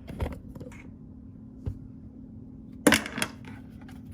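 A few sharp knocks and clacks of hard objects being handled. The loudest is a pair about three seconds in, over a steady low hum.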